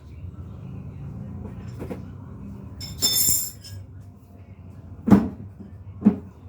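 Hand tools working a tire on its rim without a tire machine: a short metallic scrape with a ringing edge about three seconds in, then two sharp knocks about a second apart, over a low steady hum.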